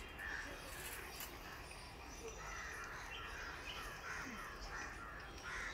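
Crows cawing repeatedly, a series of short hoarse calls over a low background rumble.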